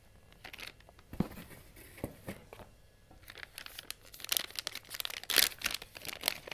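Plastic anti-static ESD bag crinkling and rustling as it is handled, with a few sharp crackles at first and busier crinkling in the second half.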